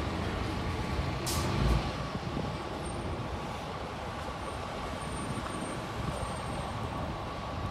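Orion V diesel transit bus pulling away from a stop, its engine sound fading as it drives off, with a short air hiss about a second in.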